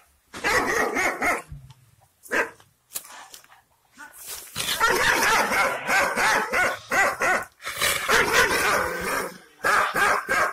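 Aksaray Malaklı shepherd dog barking angrily. A few short bursts of barks come first, then an almost unbroken run of barking from about four seconds in, and a few more barks near the end.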